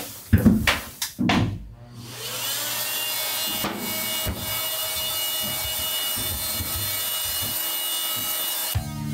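A few loud knocks and scrapes from demolition work, then a small electric power tool's motor spins up about two seconds in and runs steadily. Guitar music comes in near the end.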